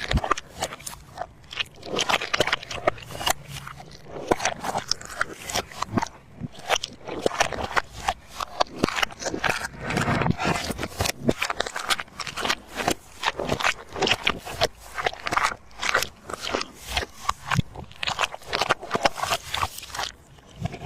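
A dog chewing, with irregular crunching and scraping sounds.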